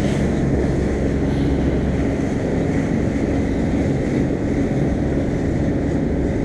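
Fishing boat's engine running steadily, a low even drone, with wind and water noise over it.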